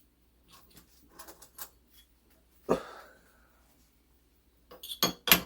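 Light clicks and taps of metal clock parts and tools being handled at the bench. About two and a half seconds in there is one sharper knock that rings briefly, and near the end a quick run of loud clicks.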